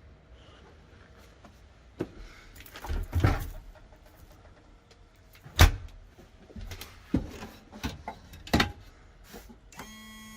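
A run of knocks and bangs of doors or cupboard fittings being handled inside a camper van, the sharpest and loudest about halfway through. Near the end a steady pitched electric whine starts up.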